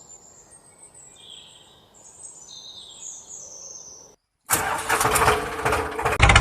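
Birds chirping faintly, then after a brief break an engine starts and runs, settling into a steady rhythmic idle near the end.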